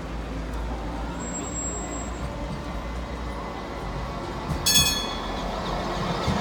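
Tram running with a steady rumble, and a brief, high ringing sound a little before the end, the loudest moment.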